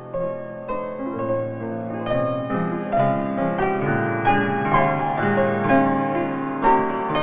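Background piano music, gentle notes struck at a steady pace.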